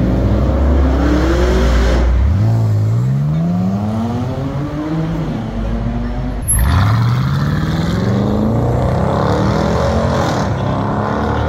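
SUV engines accelerating hard in turn: a low exhaust rumble, then an engine revving up with a climbing pitch about two seconds in, and a second, louder acceleration that starts sharply over halfway through.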